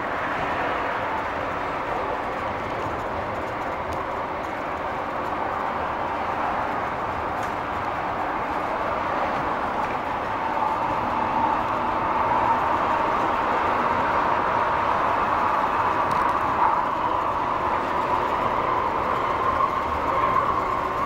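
Light rail vehicle running along the track, heard from inside the front of the car: a steady rolling rumble with a whine that strengthens as it grows louder about halfway through.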